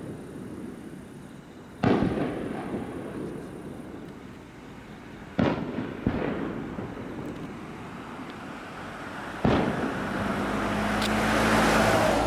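Fireworks display: aerial shells bursting with sharp booms about two, five and a half, six and nine and a half seconds in, each echoing away. Near the end a rushing noise swells up to a peak.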